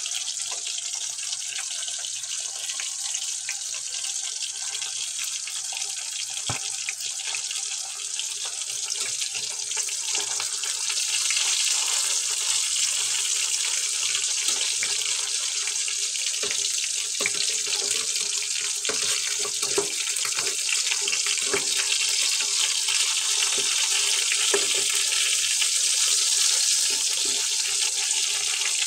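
Slices of pork luncheon meat frying in hot oil in a frying pan: a steady sizzling hiss with scattered pops and crackles, growing louder about eleven seconds in.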